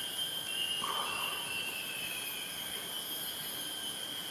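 Steady high-pitched drone of rainforest insects, with a short lower call about a second in.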